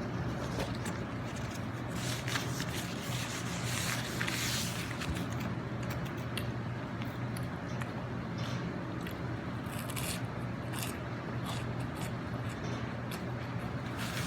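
A person eating close to the microphone: chewing, with scattered clicks and short scraping sounds, over a steady low hum.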